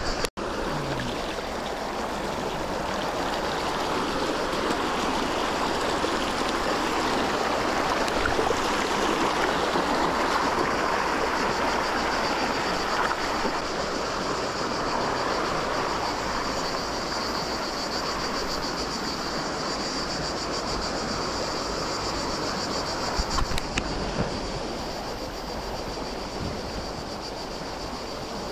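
Cetina river water rushing steadily, swelling a little in the middle and easing off toward the end. A few short knocks sound about 23 seconds in.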